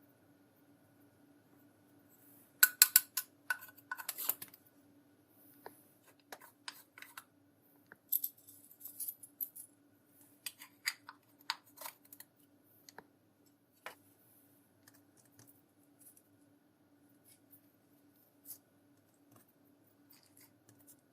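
Crisp clicks and taps from makeup and slime being handled, in short clusters with quiet gaps between; the loudest run comes a few seconds in.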